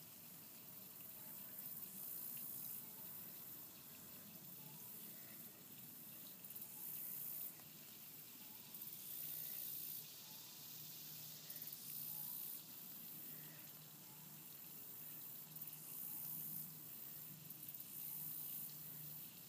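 Faint hiss of running water that swells and fades every second or two, over a low steady hum.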